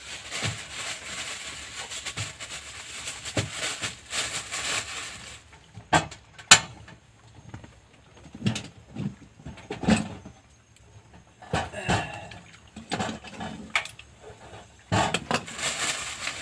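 Cooking prep by hand at a camp stove: about five seconds of rough rustling hiss that stops abruptly, then sharp knocks and clanks of a cooking pot, the loudest about six and a half seconds in, and scattered handling noises, with the rustling back near the end.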